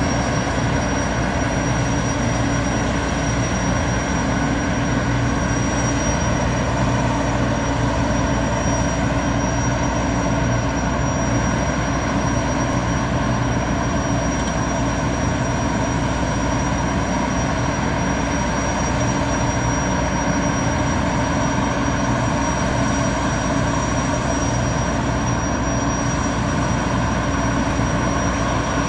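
Boeing 929 Jetfoil's gas turbines running steadily at idle with a high whine, the vessel still moored just before departure.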